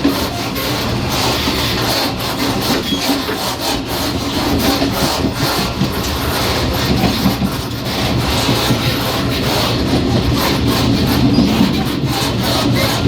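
The gangway between two cars of a Taiwan Railways EMU500 electric multiple unit, running on the line: a steady heavy rumble from wheels and rails, with irregular knocks and rubbing from the car connection.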